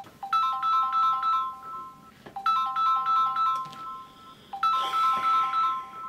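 A smartphone ringing with a melodic ringtone: a short phrase of bright repeated notes that plays again about every two seconds.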